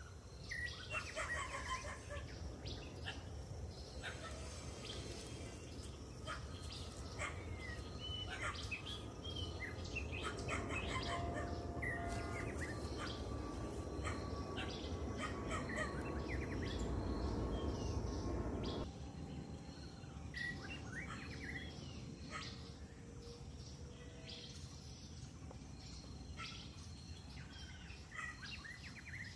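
Birds chirping with short, scattered calls over steady outdoor background noise. A louder rushing noise swells in the middle and cuts off suddenly about two-thirds of the way through.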